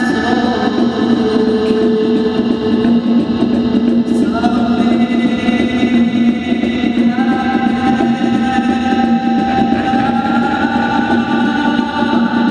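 Live band playing slow, droning music: a steady low drone under long held higher notes that step up in pitch a few times.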